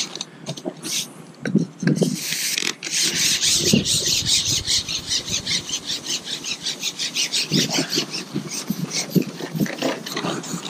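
Carbon match-fishing pole being shipped out, its length sliding with a rapid, even rasping rattle of about seven strokes a second.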